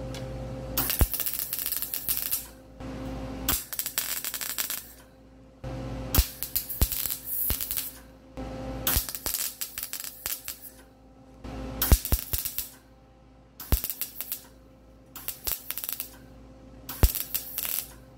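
MIG welder arc crackling in a series of short welds, about seven bursts of one to two seconds with brief pauses between, joining a patch of thin sheet steel to a steel air-cleaner snorkel. The welder is on its lowest voltage with a low wire speed to suit the thin steel.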